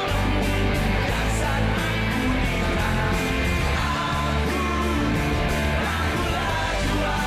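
Live rock band playing a song, with electric guitars over a steady beat.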